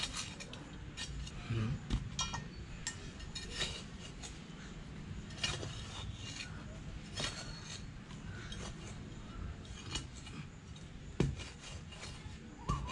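The metal blade of a hand digging tool chopping and scraping into damp soil as a small pit is dug. It makes irregular scrapes and clinks a few times a second, with the loudest stroke near the end.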